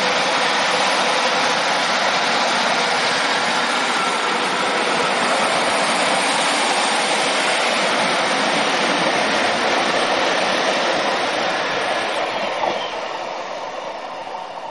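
Class 156 Super Sprinter diesel multiple unit running past close by. Near the end the sound fades as the train draws away down the line.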